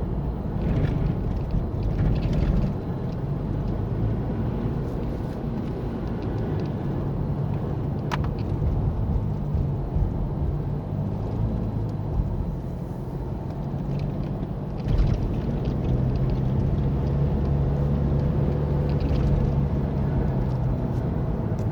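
Strong sandstorm wind rumbling on the microphone, with a low steady hum underneath. There is a sharp click about eight seconds in and a thump about fifteen seconds in.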